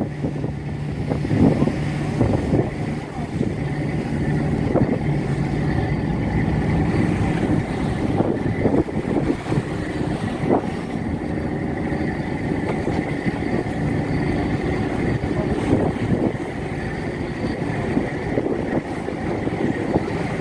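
A boat's engine running with a steady low hum, heard from on board the moving vessel, over a constant wash of noise.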